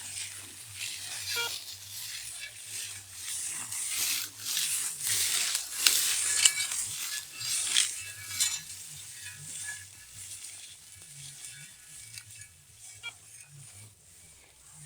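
ACE 250 string trimmer with a NEL Tornado head cutting through tall grass: a dense crackle and swish of stems struck by the line, with many sharp clicks. It is over a faint low motor hum, loudest in the middle and fading toward the end.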